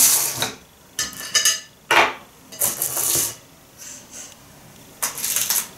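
Kitchenware clattering and scraping in about five short bursts: a metal baking tray lined with foil and a silicone cake mould being handled while the hot baked cake is worked loose.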